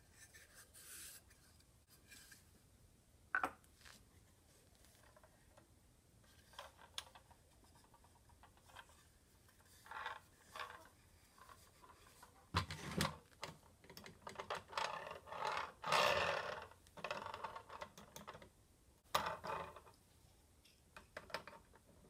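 Handling noises from a wooden box coffee grinder and its small drawer being turned over and set about on a wooden workbench: scattered clicks, light knocks and rubbing of wood and metal. The noises are sparse at first, with one sharp click a few seconds in, and thicken into a busier run of knocking and rubbing in the second half.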